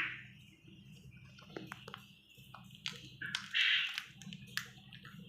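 Small clicks and light rustles as a plastic chocolate-egg capsule and its wrapper are handled, with a short hiss a little past halfway.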